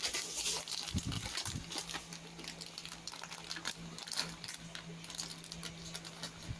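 Plastic snack bag crinkling as it is handled and torn open: many small irregular crackles, over a faint steady hum.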